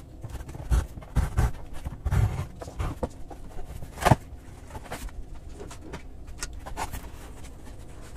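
Cardboard shipping box being opened by hand: packing tape slit and pulled, cardboard rustling, and flaps bumping and folding back, with irregular thumps and one sharp knock about four seconds in.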